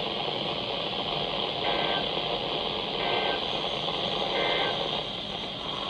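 Weather radio static hiss with three short, faint two-tone warbling data bursts about a second and a half apart. These are EAS/SAME digital code bursts, short enough to be the end-of-message signal.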